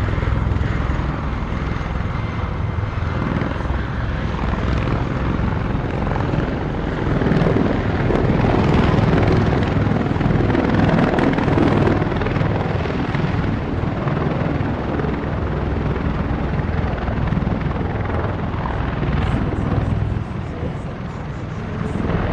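Bell Boeing CV-22 Osprey tiltrotor with its rotors in helicopter mode, hovering low and landing: loud, steady rotor and turbine-engine noise that swells about a third of the way in and eases slightly near the end.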